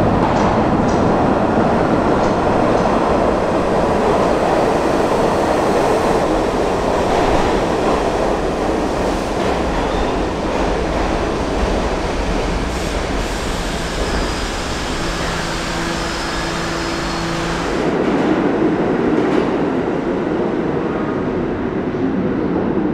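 New York City subway B train pulling into an underground station and running past the platform: a steady rumble of wheels on rail with clickety-clack. Near the end the sound changes to another subway train approaching from far down the tunnel.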